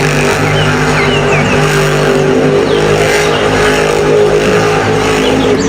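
Monster truck engine running loud and steady, with a few short high squeaks over it in the first couple of seconds.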